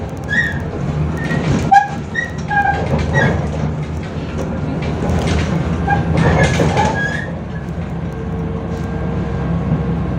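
Inside a MAZ 105 articulated city bus under way: a steady low drone of the drivetrain and road noise, with short squeaks and rattles from the body and a sharp knock about two seconds in. A faint steady whine joins in during the last couple of seconds.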